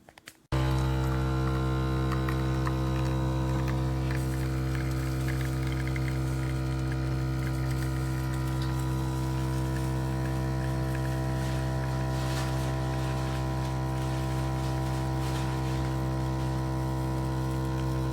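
Capsule espresso machine's pump humming steadily while brewing, starting suddenly about half a second in after a couple of small clicks.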